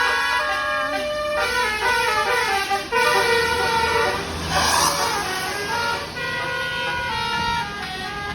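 Bus's basuri-type "telolet" musical horn playing a melody of stepped, held notes, with a short burst of hiss about halfway through.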